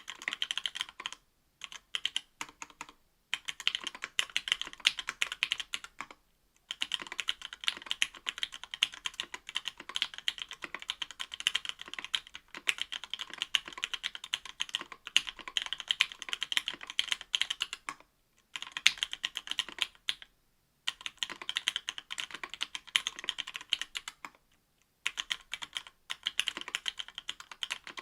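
Typing on an Octagon V3 mechanical keyboard with stock Matrix Lab FFFF 62g linear switches, an aluminium plate and GMK keycaps. The keystrokes come in fast, dense runs broken by several brief pauses.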